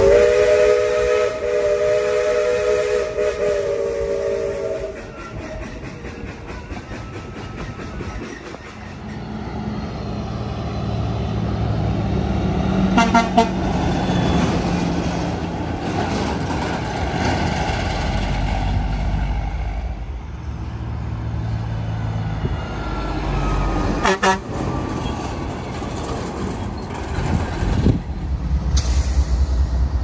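Locomotive air horn sounding one sustained chord of several notes, which stops about five seconds in. A train then runs by with a low, steady diesel engine rumble and two sharp clanks.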